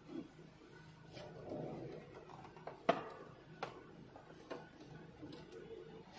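Faint handling noise of insulated wires being sorted and bent inside an electrical distribution board: soft rustling with a handful of irregular sharp clicks, the loudest about three seconds in.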